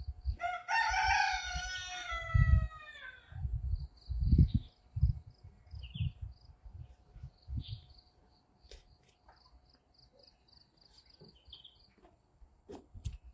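A rooster crows once, about half a second in, one long call of roughly three seconds that falls in pitch at the end. Faint high bird chirps repeat later, over low thumps.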